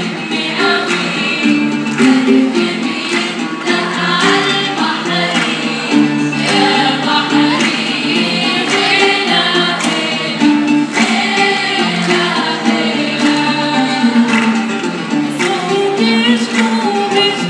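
A group of young women singing a song together into microphones, with musical accompaniment, amplified through the hall's sound system.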